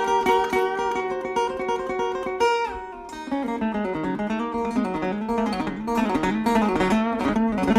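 Guitar music: quick plucked and strummed notes, changing to a new figure with bending notes about three seconds in.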